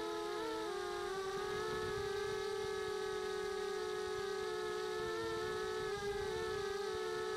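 Electric motors and propellers of the AcroBee multirotor in flight, heard from its onboard camera. They make a steady hum, several close tones that waver in pitch and drift against each other as the throttle shifts.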